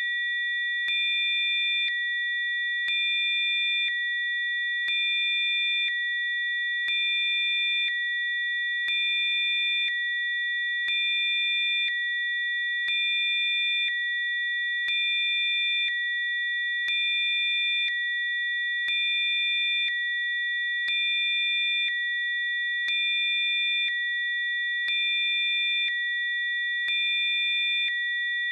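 Steady high-pitched electronic tones, several pure pitches held together, with a slight swell in level about every two seconds.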